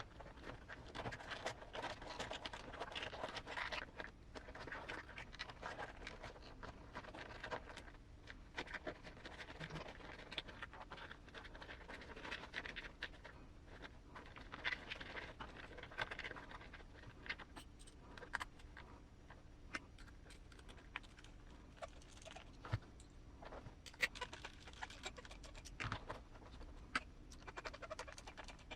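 Faint handling noise from assembling RC beadlock wheels and rubber crawler tires: irregular scratching and rustling with scattered light clicks and ticks of small parts.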